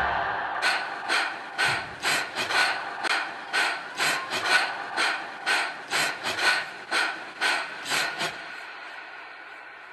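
A person breathing in quick, short gasps, about two to three a second, which stop about eight seconds in.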